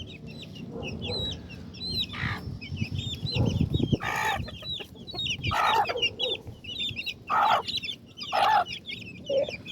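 Chickens clucking and squawking around food, several louder calls a second or so apart, over constant high chirping of small birds.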